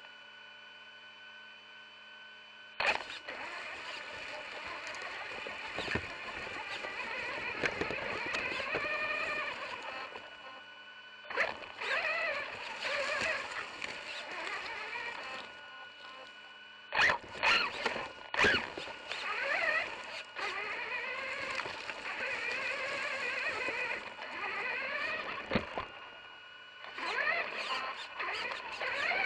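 Electric motor of an RC truck driving, its whine rising and falling in pitch with the throttle, with a few sharp knocks along the way. It starts about three seconds in after a quiet moment, eases off briefly twice, and a steady high tone runs underneath.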